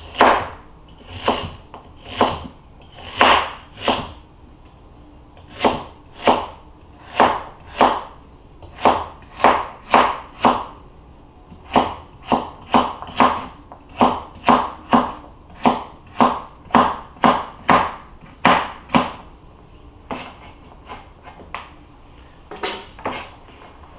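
Kitchen knife chopping carrots on a plastic cutting board: a steady run of sharp chops, about one and a half a second with a couple of short pauses, that stops about three-quarters of the way through, followed by a few fainter knocks.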